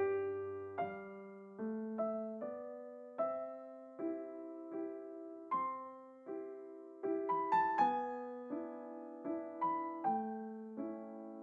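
Background solo piano music: a light, lilting tune of quickly struck notes, each fading away after it is played.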